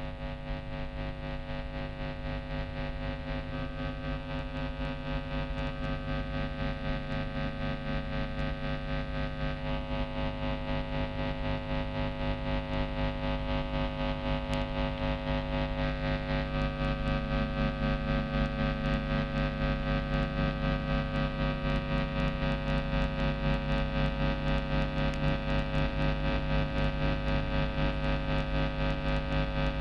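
Heavily distorted, effects-processed electric guitar drone, the guitar played through a Zoom G1 multi-effects unit: a dense wall of sustained tones that slowly swells louder and takes on a fast, regular throb in its second half.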